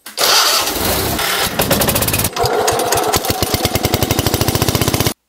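Engine running loudly with an even, rapid chugging beat, cut off suddenly near the end.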